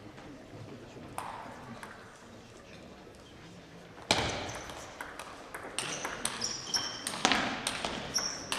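Table tennis rally: the ball clicks off rackets and table in quick, uneven succession, many hits leaving a short high ping. The rally starts about four seconds in after a quieter stretch, and the hall adds echo.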